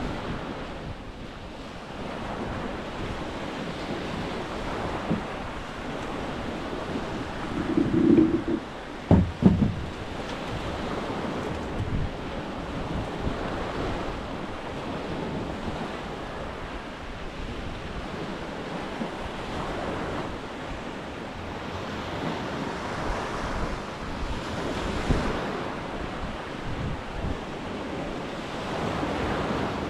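Small waves washing onto a sandy beach, with wind buffeting the microphone. A few brief knocks about eight to nine seconds in.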